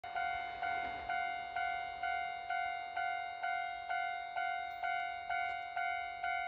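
Japanese railway level crossing warning bell ringing a steady, evenly paced clang, about two strikes a second, warning that a train is approaching.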